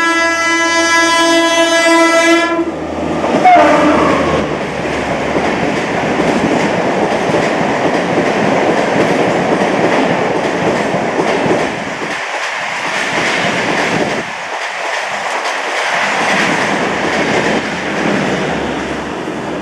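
WAP-5 electric locomotive's horn sounding one loud, steady blast, then a brief note falling in pitch about a second later. The Shatabdi Express's LHB coaches follow, rushing past at speed with wheels clattering over the rail joints.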